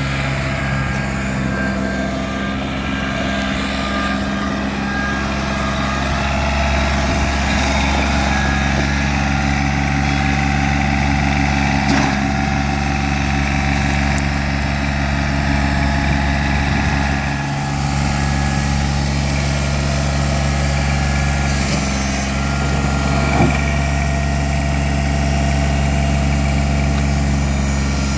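John Deere 855 compact tractor's three-cylinder diesel engine running steadily, with a couple of brief knocks about twelve and twenty-three seconds in.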